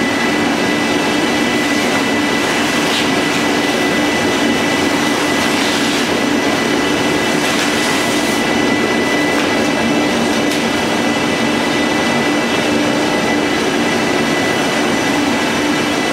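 XPS foam board production line running: conveyor and drive-motor machinery making a steady, even noise with a constant low hum and a thin high whine.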